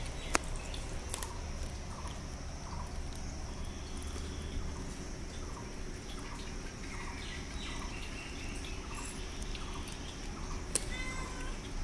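Cats eating: kittens lapping at a steel bowl, then a cat chewing dry kibble, with small wet clicks and crunches about twice a second. A few short high chirps sound in the background, and there are two sharp clicks, one near the start and one near the end.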